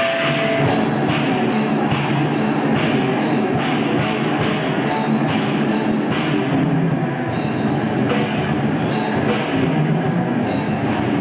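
Heavy metal band playing live: distorted electric guitars and a drum kit, loud and dense without a break. The top end is cut off, which gives it a dull, muffled sound.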